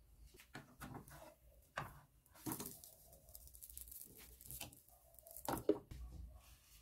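Light kitchen handling sounds: scattered clicks and knocks of a glass pan lid and tongs against a frying pan, with a soft hiss in the middle. The sharpest knock comes near the end as the wrap is set down on a ceramic plate.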